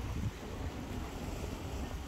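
Wind buffeting the phone's microphone: a steady low rumble over an even outdoor hiss.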